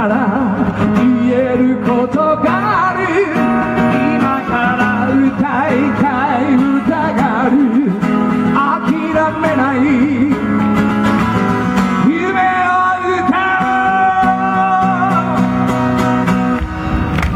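A man singing a song with vibrato, holding some long notes, accompanied by guitar.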